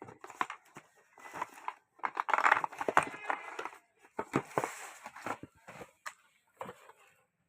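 Handling noise: irregular rustling and crinkling with scattered clicks and knocks, as of packaging being handled.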